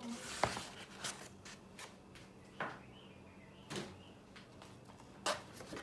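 Sheets of watercolour paper being handled: a few short, scattered rustles, with a sharp tap about half a second in.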